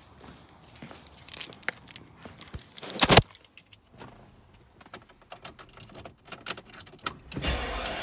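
Car keys jangling amid clicks and handling noises, with a loud knock about three seconds in. Near the end the BMW E38 is started and its engine runs up and settles.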